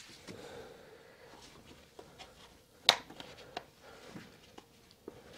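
Scattered small clicks and knocks of scooter air-filter parts being handled and fitted, with one sharp click about three seconds in.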